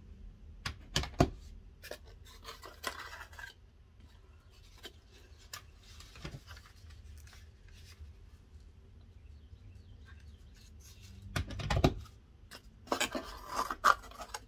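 Handling noises as craft pieces are glued and pressed into a small wooden box: a few sharp taps and knocks, with scraping and rubbing in between. A louder cluster of knocks comes near the end.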